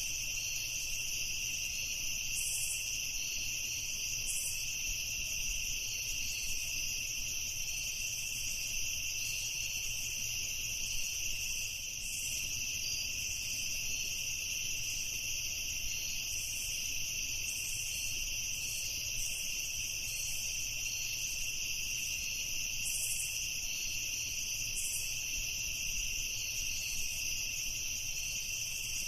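Crickets chirping in a steady, continuous chorus, high-pitched and unbroken.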